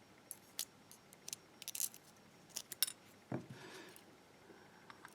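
Small metal parts of a gutted euro-profile lock cylinder clicking and tapping as they are handled: a string of sharp, light ticks, with one duller knock about three seconds in.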